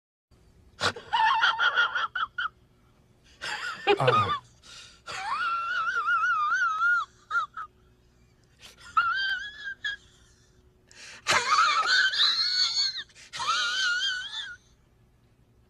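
A run of meme sound-effect clips of high-pitched, wavering, wheezing vocal sounds in about six separate bursts, with short silent gaps between them.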